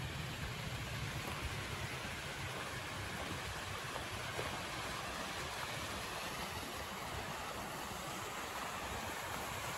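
Steady rush of a flowing stream.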